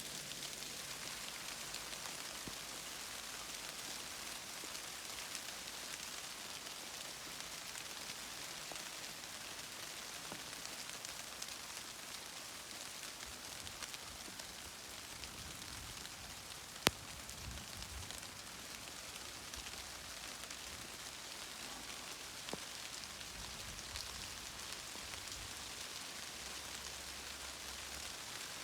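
Steady rain falling, an even hiss with scattered small drop ticks. A single sharp click a little past halfway through is the loudest moment.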